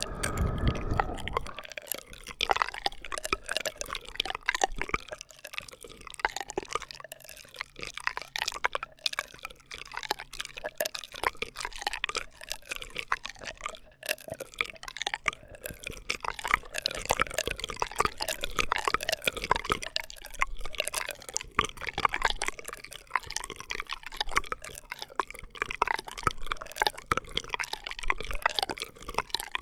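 Close-miked ASMR straw sounds: a dense, continuous run of small wet clicks and crackles, thinner for a stretch in the middle and busier again later.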